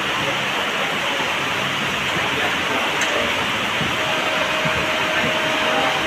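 Steady hiss of heavy rain at a railway platform, with a faint steady whine joining about four seconds in.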